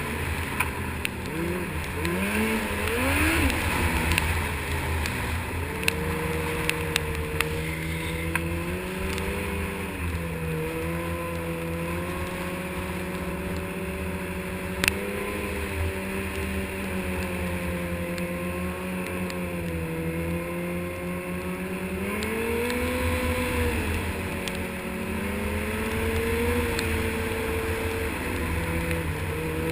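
Yamaha snowmobile engine running under way, its pitch rising and falling with the throttle over a steady low rumble. A single sharp click about halfway through.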